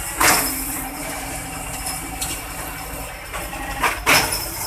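Tow-truck diesel engines running steadily at idle during a winch recovery, with two short loud bursts of noise, one just after the start and one near the end.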